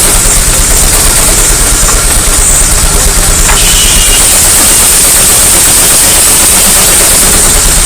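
Steam traction engine running, with a steady hiss of steam over a rapid low chuffing.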